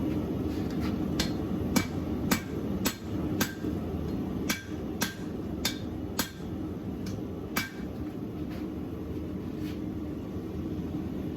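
Hand hammer blows on hot leaf-spring steel being forged into a knife blade: about a dozen sharp ringing strikes at roughly two a second, then a couple of lighter taps near the end, over a steady low rumble.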